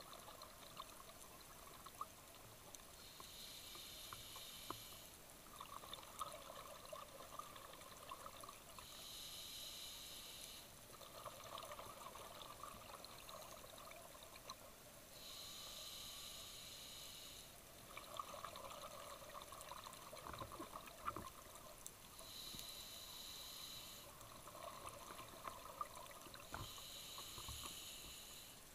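Scuba diver breathing underwater through a regulator: a hissing inhale, then a longer rush of exhaled bubbles, repeating about every six seconds, five breaths in all.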